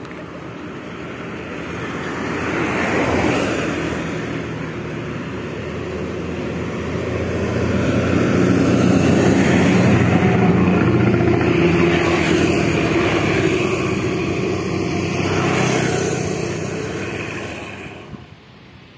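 Motor vehicle engine and road noise that rises and falls several times, loudest in the middle, then cuts off suddenly near the end.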